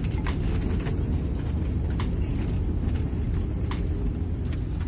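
Steady low drone of an airliner cabin in flight, with a few sharp knocks spread through it.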